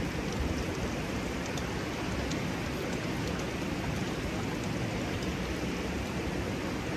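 Steady rushing of hot-spring water flowing and spilling over a small cascade into the pool.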